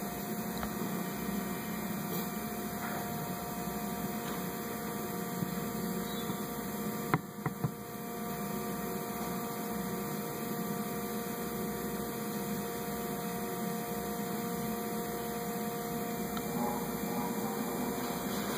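Steady electrical mains hum made of several fixed tones, with a few short light clicks about seven seconds in as the new water pump and its rubber gasket are handled.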